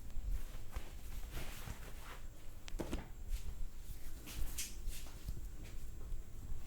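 Hands massaging head and back: soft rubbing and brushing of skin and hair in short strokes, with one sharper, briefly ringing sound about three seconds in.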